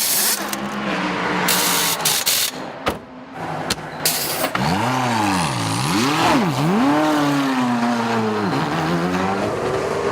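Race car engines at speed. First comes a rush of noise with several abrupt cuts. From about halfway, one engine's note stands out: its pitch dips sharply and recovers twice, holds high, then drops once and climbs again as the car revs through its gears.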